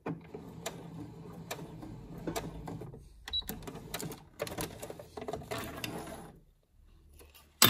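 Domestic electric sewing machine stitching the end of a seam, forward and then in reverse to lock it, with a brief pause about three seconds in. It stops a little after six seconds, and a single sharp knock follows near the end.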